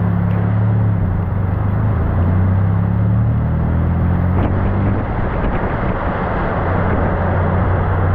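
Motor vehicle engine running steadily in heavy rain: a low engine hum under a dense rushing noise, the hum fading out for a few seconds about halfway through and then returning.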